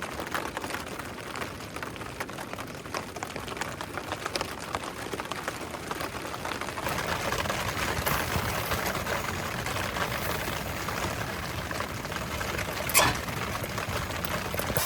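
Steady patter of rain, growing heavier about halfway through, with one sharp pop near the end.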